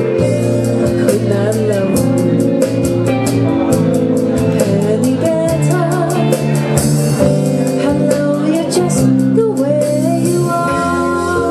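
Easy-listening pop song: a singing voice over a band with a steady beat of cymbal ticks. The percussion drops out shortly before the end, leaving sustained instrument tones.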